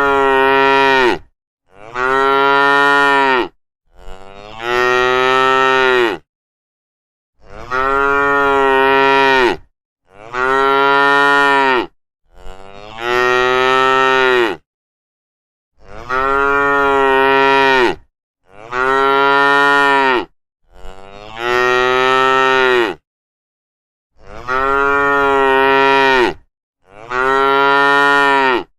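Cattle mooing over and over: about a dozen long, low calls, each lasting around two seconds, with short silent pauses between them.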